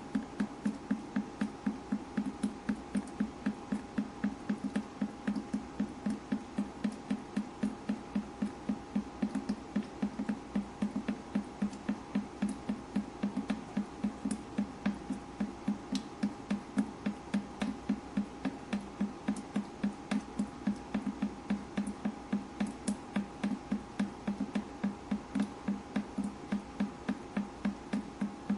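Water dripping in a fast, even rhythm, about three drops a second, each a short low plop, over a faint steady hum.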